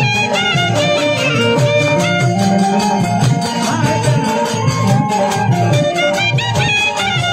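Bhojpuri folk lahra: a repeating instrumental melody with bending notes over a steady low beat, played live in teentaal, the sixteen-beat cycle.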